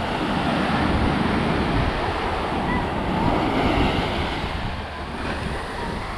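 Sea surf breaking and washing up a beach: a steady rush that swells over the first few seconds and eases off about five seconds in.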